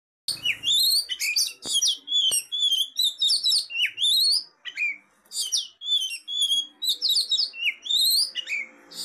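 Oriental magpie-robin (kacer) singing its calling song: a rapid, varied run of loud whistles and chirps with sliding notes, pausing briefly about halfway through. The song is used to draw an answer from other magpie-robins.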